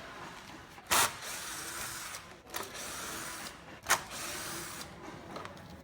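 A small motor running steadily, broken by two sharp clicks about three seconds apart.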